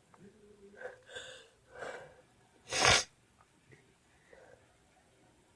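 A person sneezing: a few short catching breaths, then one sharp, loud sneeze almost three seconds in.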